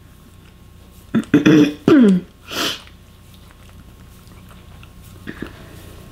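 A person clearing their throat: a few short throaty sounds, the last sliding down in pitch, then a short breathy cough, all within about a second and a half. Faint small ticks follow a few seconds later.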